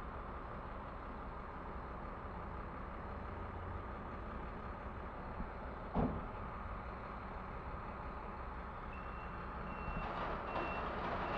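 Steady low rumble of street traffic, with a single sharp thump about halfway through. Near the end a vehicle's reversing alarm starts, sounding short high beeps evenly spaced, a little more than one a second.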